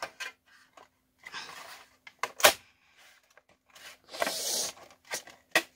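A thin diamond-plate sheet with double-sided tape is being pressed and fitted into a plastic RC truck bed. There are a few sharp taps and clicks, the loudest about two and a half seconds in, and two bursts of crinkling rustle, the louder near the end.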